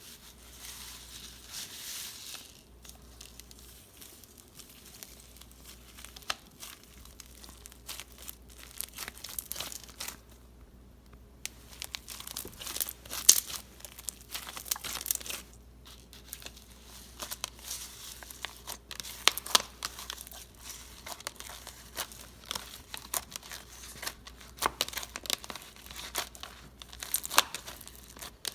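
Slime being mixed and kneaded with foam beads into floam, giving dense, irregular crunching and crackling pops.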